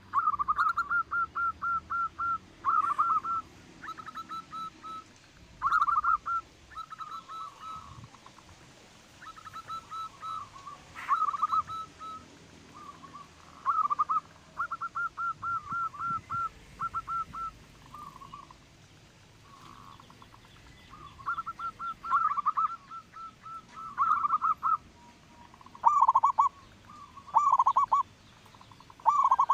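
Zebra dove (perkutut) cooing: repeated phrases of short, rapid staccato notes, each phrase a second or two long, with brief pauses between them.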